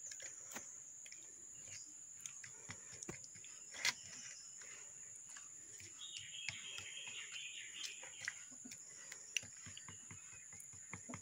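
Fingers squishing and kneading a thick wet paste in a bowl: faint, irregular squelches and small clicks, with a short patch of bird-like chirping about six seconds in.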